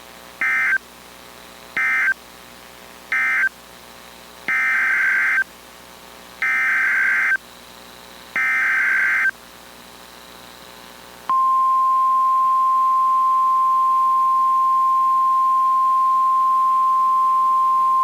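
NOAA Weather Radio SAME digital data bursts: three short warbling bursts (end-of-message codes), then three longer bursts (the header of a new alert). About eleven seconds in they give way to the steady 1050 Hz warning alarm tone that announces the alert.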